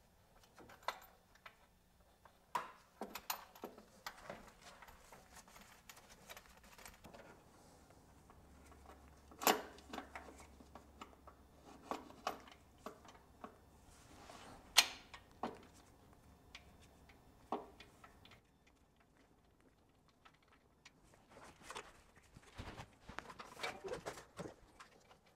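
Faint, scattered small clicks, taps and rustles of hands working by feel in a cramped engine bay, starting a new PCV valve into its threads. Two sharper knocks stand out, about ten and fifteen seconds in.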